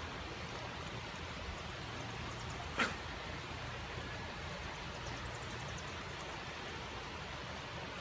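Shallow woodland creek running steadily over rocks, with one brief sharp sound a little under three seconds in.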